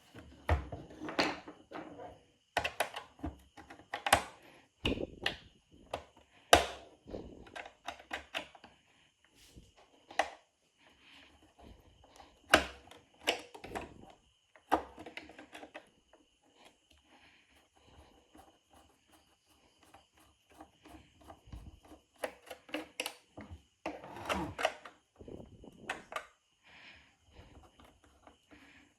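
Irregular clicks and knocks of tools and small parts being handled during work on an old radio, coming in bursts, over a faint steady high-pitched tone.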